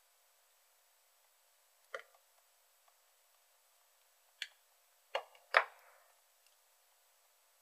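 Light clicks and knocks of tools or small parts being handled on a workbench: one about two seconds in, another near the middle, then two close together, the last the loudest.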